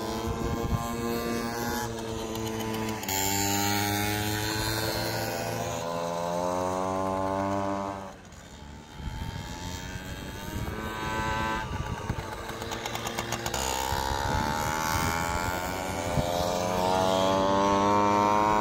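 Several small motorcycles lapping a tight circuit, their engines revving up and down through the corners, sometimes more than one at once. There is a brief lull about eight seconds in, and it is loudest near the end as a bike leans past close by.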